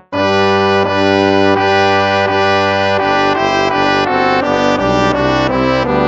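Instrumental hymn music played in brass: sustained chords moving step by step, after a very short break right at the start as a piece begins.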